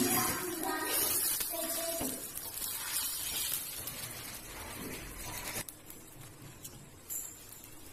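Beaten egg omelette sizzling on a hot flat griddle (tawa), a steady hiss with faint voices in the first two seconds. The sizzle drops off sharply about five and a half seconds in.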